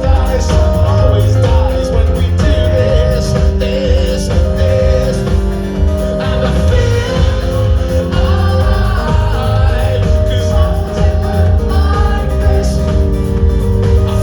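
A live rock band playing loudly: long held chords over heavy bass and drums, with singing.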